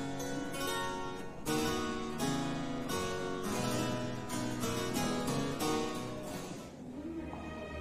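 Background music: a harpsichord playing a quick run of plucked notes. It fades near the end as a softer piece with held notes comes in.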